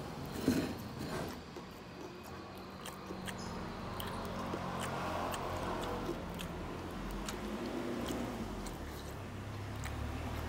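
A person chewing a mouthful of rice with anchovy sambal, with scattered light clicks of a metal spoon against the plate.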